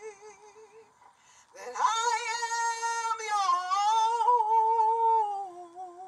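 A woman singing a worship song into a microphone: a held note with vibrato fades out in the first second, then after a short breath she comes in loud on a long sustained note that dips in pitch midway, climbs back, and tails off near the end.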